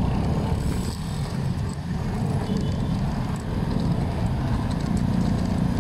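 Wind buffeting the microphone of a phone carried on a moving bicycle: a steady low rumble with a few faint ticks.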